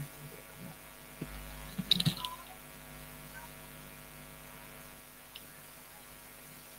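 Steady electrical mains hum, with a short cluster of sharp clicks and knocks about two seconds in and a single click a little before it.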